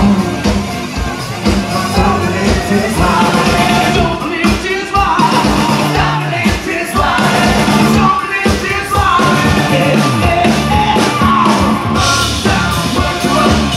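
Live rock band playing loud, with a steady drum beat, guitar and a singer's voice over it.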